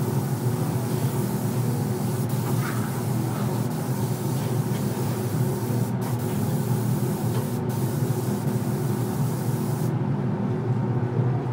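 Steady hum with a rushing hiss of moving air, as from a paint booth's ventilation running. The high hiss drops away suddenly near the end.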